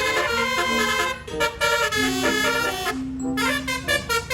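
Telolet bus horn playing its multi-tone tune, several horn notes stepping up and down, with a short break about three seconds in.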